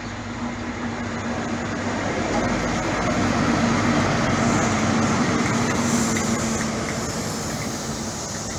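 Diesel power car of a High Speed Train (Class 43) passing at close range: a steady engine drone over wheel and rail noise. It swells to its loudest as the power car goes by about four seconds in, then eases as the coaches follow.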